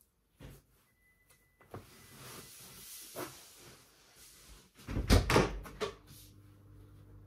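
Fabric rustling as a drawstring laundry bag is pulled shut and carried off, then a cluster of loud knocks and thumps about five seconds in, with a low steady hum starting just after.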